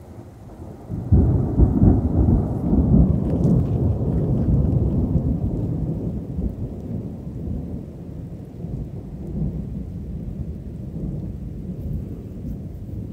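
Thunder: a loud clap about a second in that rolls on as a deep rumble, slowly dying away over the next ten seconds, with rain falling.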